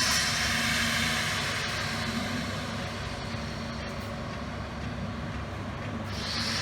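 Stick-welding arc crackling steadily as a pipe weld is run. The crackle thins out about two thirds of the way in and picks up again near the end.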